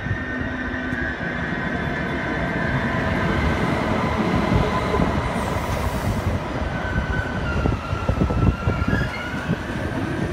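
Deutsche Bahn ICE high-speed train pulling into the station and rolling past close by, a steady rumble of wheels on the rails. A thin high squeal wavers in pitch in the second half as the train slows.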